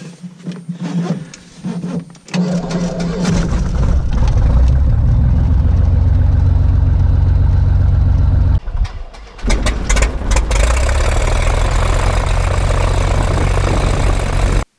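Cessna 180's six-cylinder Continental O-470 engine starting about two seconds in, then running steadily. The sound drops away briefly past the middle and comes back.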